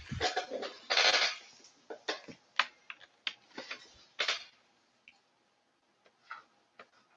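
Irregular sharp clicks and clatter of small hard objects, with a short burst of noise about a second in, dying away to near silence after about four seconds.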